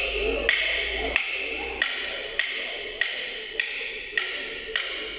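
Wooden sticks struck together in a steady beat, about nine sharp ringing clacks, roughly three every two seconds, keeping time for an exercise.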